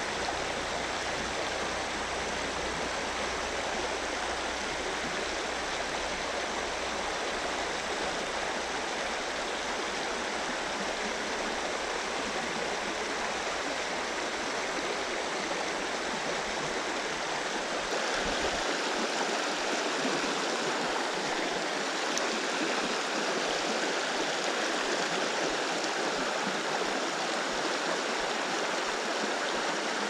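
Creek water flowing, a steady even hiss that gets slightly louder about two-thirds of the way through.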